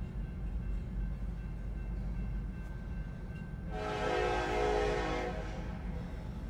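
Diesel locomotive air horn sounding one blast of about two seconds, a chord of several tones, about four seconds in. Underneath it runs a steady low rumble.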